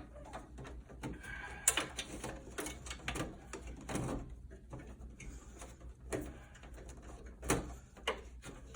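Electrical cable being fed through the holes in a PTAC unit's metal housing: irregular scraping, clicks and light knocks, with sharper knocks nearly two seconds in and again near the end, over a steady low hum.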